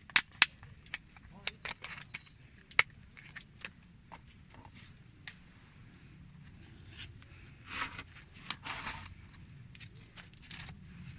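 Wood campfire crackling, with sharp irregular pops and snaps and a couple of brief softer rushes of noise about eight seconds in.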